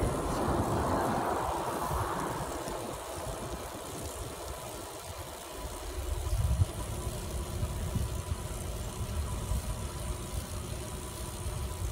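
Wind buffeting the microphone of a phone held out on a selfie stick while cycling: an uneven low rumble that eases off for a few seconds in the middle and picks up again about six seconds in.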